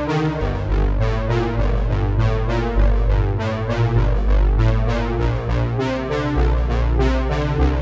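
Background music: a keyboard-synthesizer melody over a steady beat.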